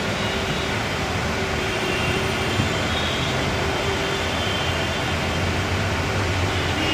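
Steady even background noise with a faint low hum.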